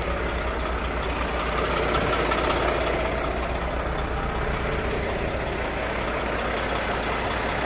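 Tractor-trailer's diesel engine running at low speed, heard from inside the cab as a steady, evenly pulsing low rumble that grows slightly louder about two seconds in.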